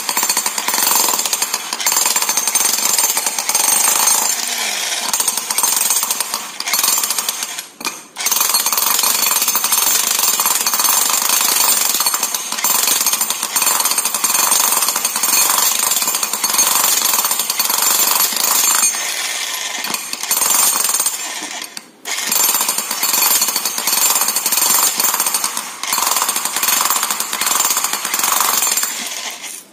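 Dong Chang PH65H 16 kg electric demolition hammer running, its chisel bit hammering continuously into a masonry block and breaking it into pieces. It stops briefly about 8 seconds in and again about 22 seconds in, then starts hammering again.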